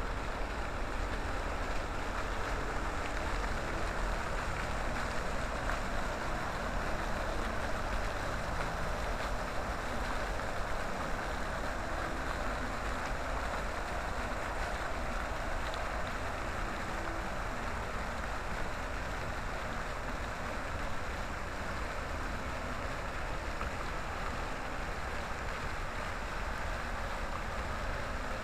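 Many fountain jets splashing steadily into a water basin, a continuous even rush of falling water with a low rumble underneath.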